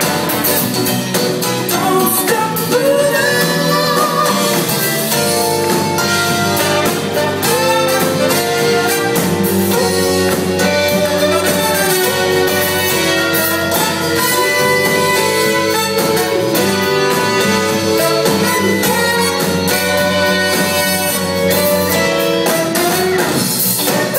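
Live band playing continuously: drums, electric guitars, bass and a horn section, with a lead singer.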